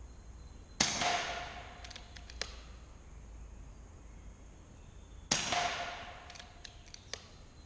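Two air rifle shots about four and a half seconds apart, each a sharp crack with a short echo off the range building, followed by a few faint clicks.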